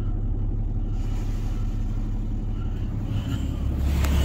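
Pickup truck engine idling, heard from inside the cab: a steady low rumble that grows louder near the end.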